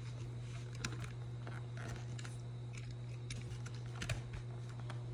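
Faint, scattered light taps and rustles of hands handling a cardboard trading-card box, over a steady low hum.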